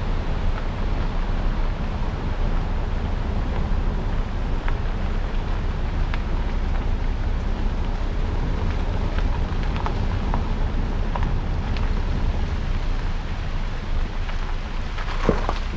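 Steady low rumble of a vehicle driving slowly along a rough forest road, road and wind noise, with scattered light ticks and a couple of louder knocks near the end.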